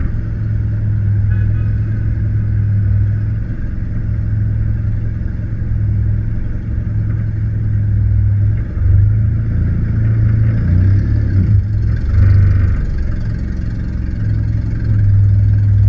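Car engine heard from a hood-mounted camera, a steady low drone at low speed, with the revs briefly rising and falling about ten seconds in.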